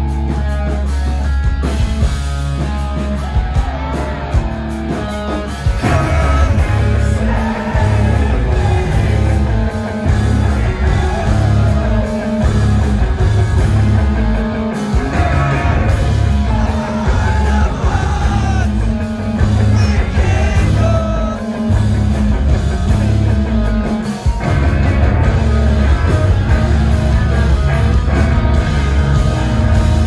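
Live rock band playing loud: electric guitars, bass guitar and drums with a male lead singer. The band comes in fuller and louder about six seconds in.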